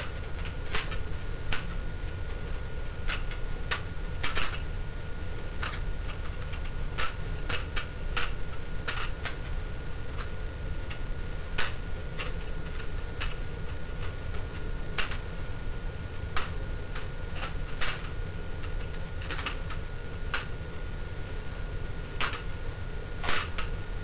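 Balisong (butterfly knife) being flipped: its handles clack against each other and the blade in sharp, irregular clicks, about one or two a second with some in quick clusters, over a steady low hum.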